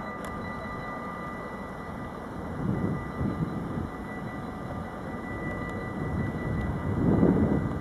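Distant diesel locomotive of the Railion class 6400, hauling a car-carrier freight train, running as it approaches: a steady drone with low rumbling that grows louder near the end.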